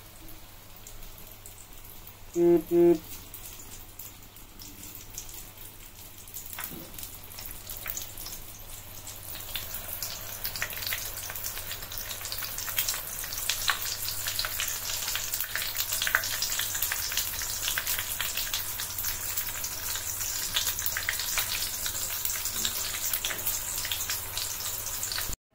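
Batter-coated boiled eggs deep-frying in hot oil: a steady crackling sizzle that grows louder and busier from about ten seconds in. Two short tones sound a couple of seconds in, the loudest thing heard.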